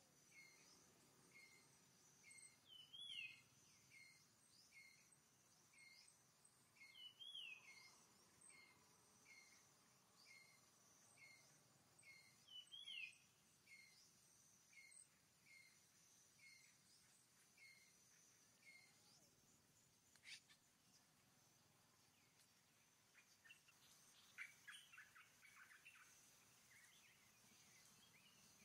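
Faint birdsong: a short call repeated about twice a second for most of the first eighteen seconds, broken three times by a louder rising-and-falling call, then a quick burst of chattering notes near the end. A steady high-pitched hum runs underneath.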